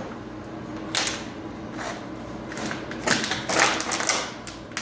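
Irregular scuffling and clattering as a puppy scrambles after a toy, with a short rustle about a second in and a busier cluster of scuffs around three to four seconds in.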